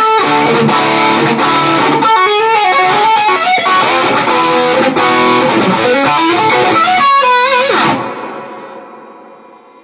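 Headless electric guitar playing quick single-note runs and chords. About eight seconds in the playing stops and the last notes ring on and fade away.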